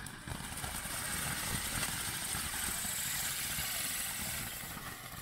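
Winda Ballerina's Ball firework fountain burning, a continuous rushing hiss of the spark spray.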